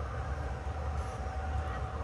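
Low rumble from a battery-powered model diesel locomotive's onboard sound system, with a faint steady tone above it.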